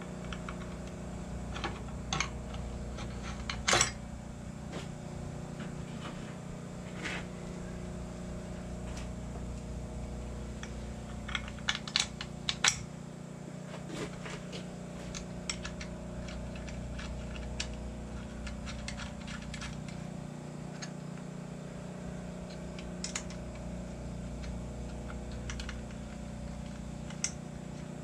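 Scattered metallic clinks and clanks of steel parts and bolts being handled, the loudest a few seconds in and about halfway through, over a steady low machine hum.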